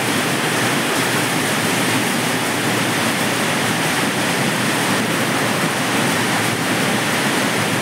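Heavy hailstorm with strong wind: hail and rain pouring down in a steady, dense rush of noise that does not let up.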